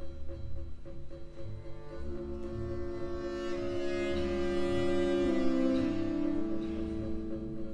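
Background music: sustained, string-like notes that build from about two seconds in and swell past the middle, over a steady low pulsing beat.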